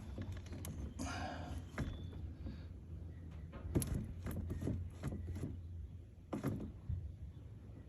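Scattered light clicks and knocks of parts being handled, with a brief rustle about a second in, over a steady low hum.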